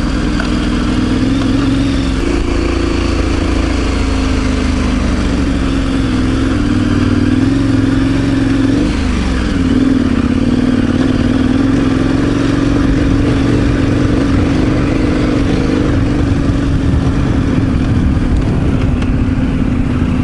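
Motorcycle engine running steadily under load as it climbs a dirt track, its note dipping and coming back up about nine seconds in, with wind rumbling on the microphone.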